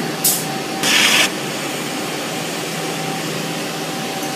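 Spirax Sarco thermodynamic (TD) steam trap discharging through a hose with a steady hiss of live steam that it leaks even while shut. Two short, louder blasts of steam come about a quarter second and about a second in as the trap cycles open.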